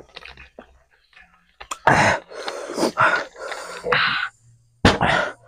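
Indistinct low talk mixed with mouth and eating sounds while noodles are eaten, with a sharp loud smack just before the end.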